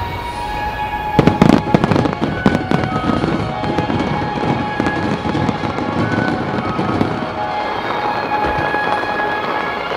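Fireworks shells bursting in a rapid, loud run about a second in, then continuing pops and crackles that thin out as the glittering stars spread. Show music plays throughout.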